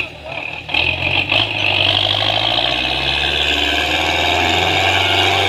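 Belarus 510 tractor's diesel engine running steadily, growing louder about a second in.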